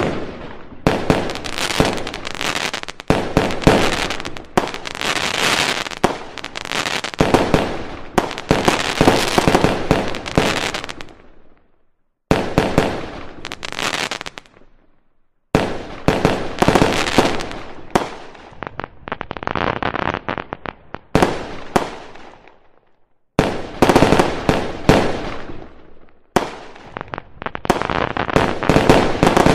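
Fireworks display: shells bursting in a rapid, dense run of bangs and crackling. It cuts off abruptly to silence a few times and then starts again.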